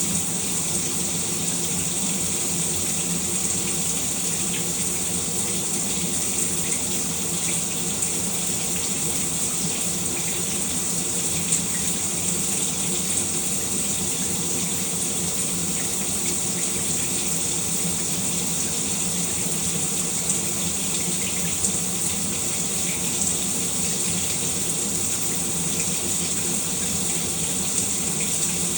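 Shower running steadily: a continuous spray of water with a few brief louder splashes.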